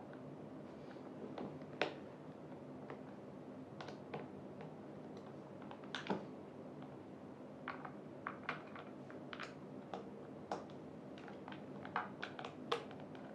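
Irregular small clicks and taps of metal hardware and chair parts being handled during assembly of a gaming chair, over a faint steady hum.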